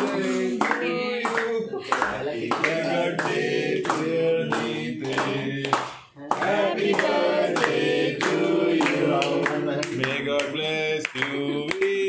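A group of people singing a birthday song together while clapping along, with a brief pause about six seconds in.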